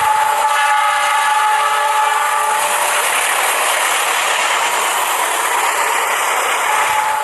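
Battery-powered toy train running along plastic track: a steady whir from its small motor and gears with a rattling noise from the wheels and wagons, which grows louder in the middle as the train passes close.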